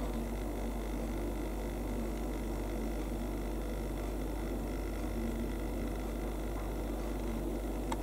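Steady low hum and hiss of indoor room tone, with no bird calls heard. There is a faint click near the end.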